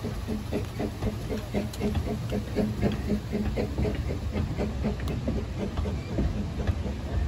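Narrow-gauge steam train rolling past and drawing away: a quick, even run of clicks and knocks from the carriages' running gear over a low rumble, with a little steam hiss.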